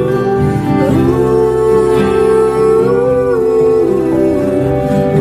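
A song playing: guitar accompaniment under a singer holding long "ooh" notes that slide from one pitch to the next.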